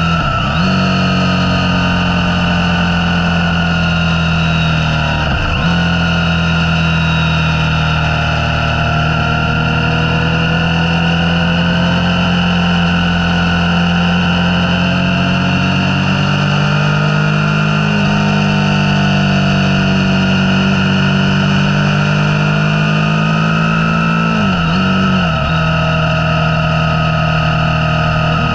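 Motorcycle engine running steadily under way at road speed. Its note drops briefly and recovers three times: just after the start, about five seconds in and near the end.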